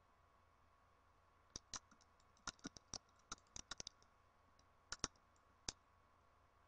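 Quick irregular clicks of typing on a computer keyboard, about fifteen keystrokes starting about a second and a half in, with a last few near the end.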